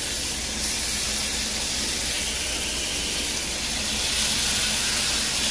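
Catfish pieces sizzling in a skillet of hot melted butter, a steady frying hiss that grows a little louder about four seconds in.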